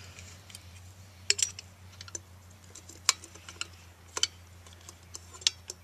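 Light clicks and taps of hands fitting a halogen headlight bulb into a plastic headlight housing, with four sharper clicks spread through.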